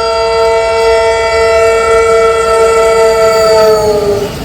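Train horn sounding one long, loud blast that dips slightly in pitch near the end before cutting off.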